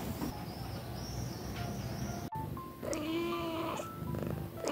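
A domestic cat meowing: one long, drawn-out meow about three seconds in, over light background music.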